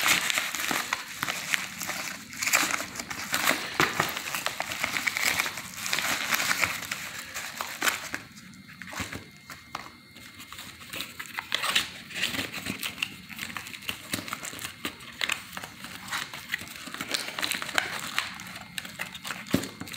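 Paper and plastic packaging crinkling and crackling as it is handled and unwrapped: a yellow mailer and clear plastic wrap rustling under the hands, irregular and ongoing, easing off for a few seconds about eight seconds in.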